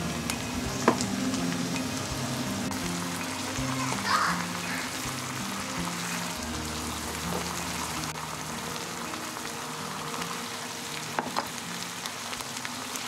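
Mapo tofu sauce with plant-based mince and leeks sizzling and bubbling in a non-stick frying pan as it comes to a boil, stirred with a plastic spatula, with a few light taps of the spatula against the pan. Soft background music plays underneath.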